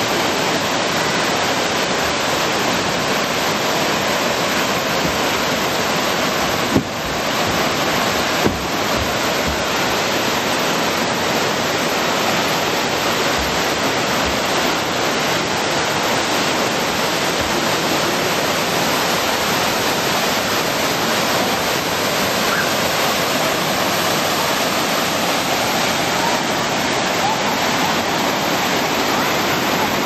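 Waterfall and its stream cascading over rocks: a steady, even rush of falling water. Two brief knocks about seven and eight and a half seconds in.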